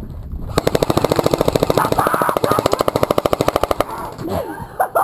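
Airsoft gun firing one long full-auto burst: a rapid, even string of shots, roughly a dozen a second, starting about half a second in and lasting about three seconds. Someone shouts near the end.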